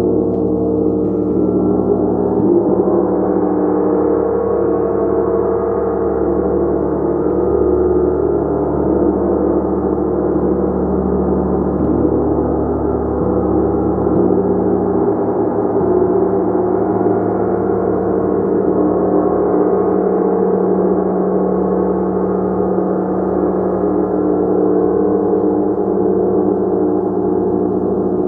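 Gong played continuously in a sustained, shimmering wash: many overlapping tones ring together, building slightly a few seconds in and holding steady.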